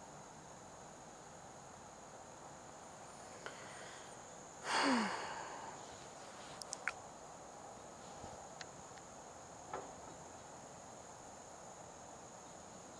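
Insects, likely crickets, chirring in a steady high drone. About five seconds in, a short loud breathy rush with a falling low tone, then a few faint clicks.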